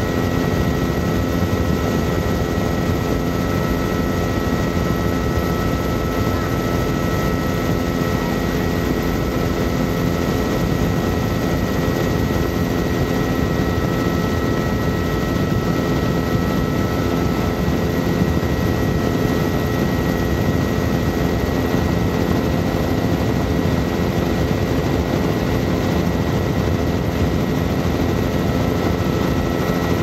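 Helicopter in flight heard from inside the cabin: a steady, unchanging drone of engine and rotor, with a constant high whine running through it.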